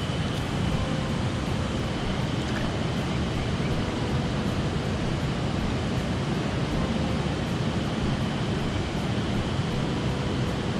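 Mountain stream water rushing steadily, an even noise without breaks.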